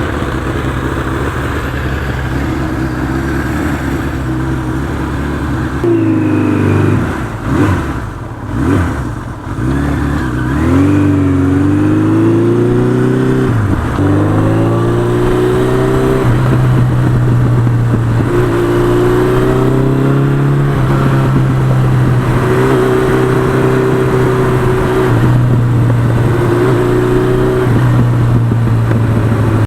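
1982 Suzuki GS1100E's inline-four engine running. It is steady at first, then its pitch rises and falls several times between about six and fourteen seconds in, as with revving or changing gear, and then it holds a fairly steady note.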